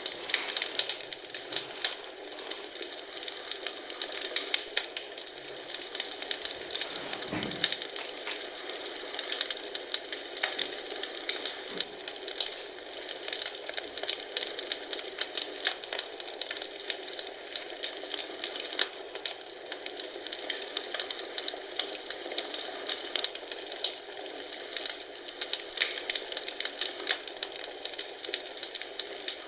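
Wood fire burning in a fireplace, crackling with dense, irregular snaps and pops over a steady hiss. A soft low thump comes about seven and a half seconds in.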